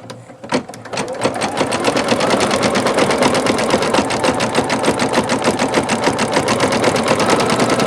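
Singer Futura XL-550 embroidery machine starting up after a few clicks, then stitching at a quick, even rhythm of needle strokes. It runs without the rattle from the bobbin area, after the fix.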